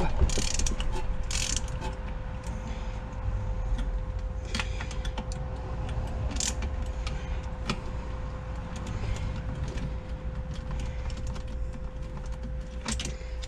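Irregular metallic clicks and clinks of hand tools on the parts of an old Briggs & Stratton single-cylinder engine being taken apart, over a steady background hum.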